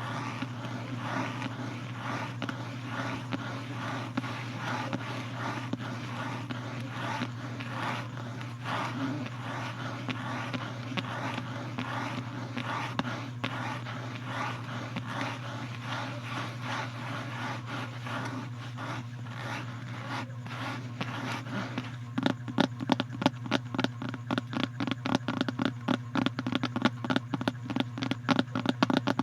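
Close-up scratching on a surface over a steady low hum. About three quarters of the way in it changes to rapid, sharper tapping, louder than the scratching.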